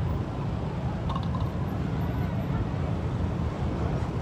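City street ambience: a steady rumble of passing motorbike and car traffic, with crowd voices.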